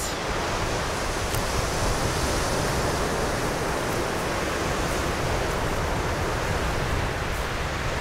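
Steady wash of sea surf breaking on a beach, an even hiss with no distinct events.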